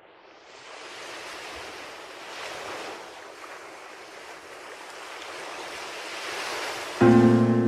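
A rushing, surf-like noise that fades in and swells and ebbs like waves. About seven seconds in, loud music with a held chord cuts in suddenly.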